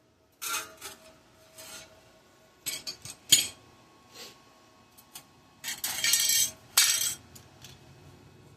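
Pieces of metal being handled and set in place on a work surface: irregular clinks, knocks and short scraping rasps of metal on metal, with a sharp clank about three seconds in.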